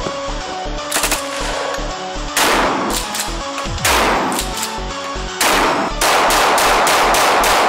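Gunfire laid over electronic music with a steady bass beat: single loud shots about every second and a half, then a rapid burst of automatic fire near the end.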